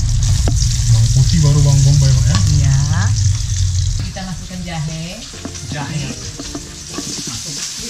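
Sliced onion and garlic sizzling in hot oil in a wok as they are stir-fried with a metal spatula. A voice is heard over the sizzling in the first half and again around the middle.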